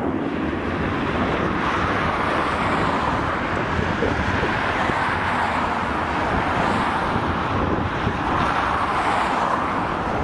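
Boeing OC-135B jet climbing away after takeoff, its four TF33 turbofan engines at climb power. A loud, steady jet noise with a deep rumble underneath, holding even throughout.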